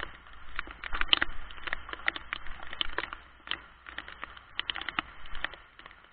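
Raindrops tapping irregularly on an SJ4000 action camera, several hits a second close to its microphone, over a faint low rumble.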